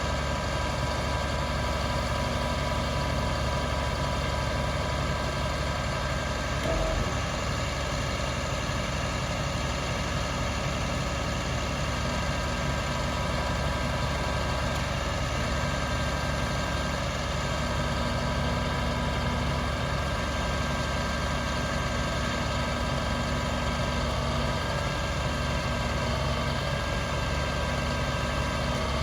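MaxxForce DT turbo diesel inline-six of an International 7400 truck idling steadily, with one brief knock about seven seconds in.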